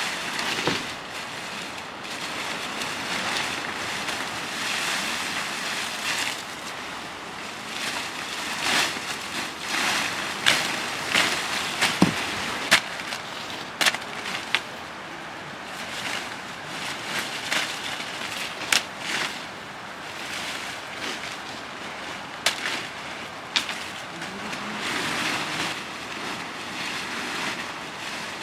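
Leafy fodder-tree branches rustling and swishing as they are pulled and gathered, with sharp chops and snaps from a hand blade cutting the branches, most of them in quick succession through the middle.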